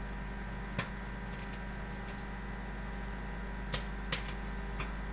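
Microwave popcorn kernels popping inside a running microwave oven: four scattered sharp pops over the oven's steady hum, as popping begins.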